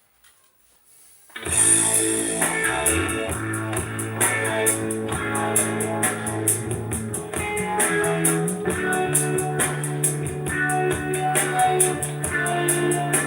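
Near silence for about a second and a half, then a band's instrumental intro starts suddenly: guitar, bass and drum kit playing steadily.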